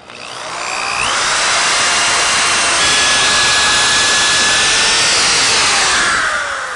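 Electric power drill with a twist bit boring a pilot hole through a pine sawhorse leg for a screw. The motor whine rises as it spins up over about the first second, holds steady while cutting, then falls away as it winds down near the end.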